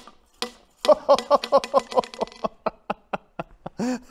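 Steel ball bearing dropped down a tube onto the hard-faced face of a cast iron anvil. A sharp click as it lands and rebounds, then a fast run of ringing ticks as it keeps bouncing, thinning out toward the end. The lively rebound shows the welded face is hard.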